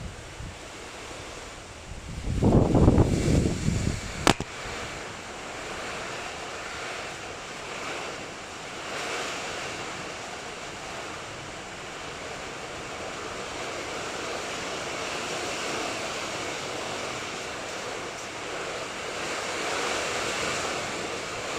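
Heavy rain pouring down steadily. About two seconds in comes a loud low rumble lasting a couple of seconds, followed by a single sharp click.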